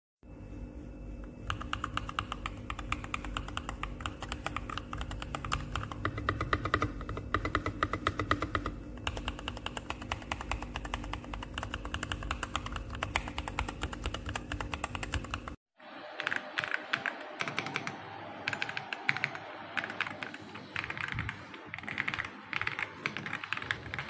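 Fast typing on a mechanical keyboard with Akko V3 Cream Yellow Pro linear switches: a dense, continuous run of key clacks. About two-thirds of the way through it cuts off for a moment and a second run of typing follows, with higher-pitched clacks.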